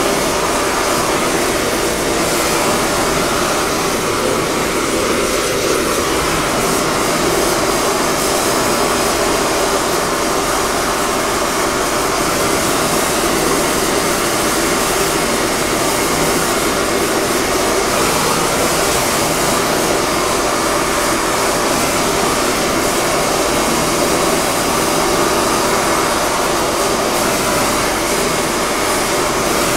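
Gas welding torch flame hissing steadily as it heats a cracked bell to brazing temperature for silver soldering.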